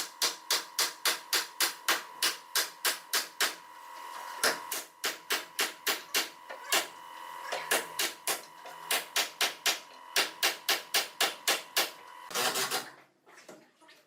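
Rapid, evenly paced knocking, about four strikes a second, over a steady high hum, with a short pause near the middle and a brief noisy burst near the end.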